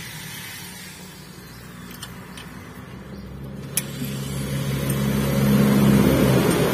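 A motor vehicle engine running with a steady hum, growing louder from about four seconds in and loudest around six seconds.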